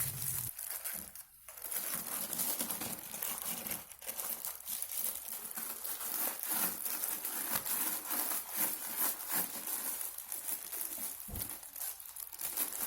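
Crinkling and rustling handling noise, with many small irregular clicks throughout.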